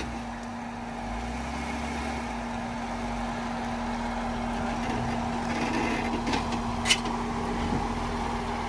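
Jeep Wrangler engine running with a steady hum under light throttle as the Jeep crawls up a rock ledge, growing slightly louder. A single sharp knock comes near the end.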